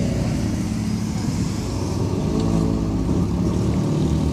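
Motor vehicle engine running steadily, its pitch bending up and down briefly a little past the middle.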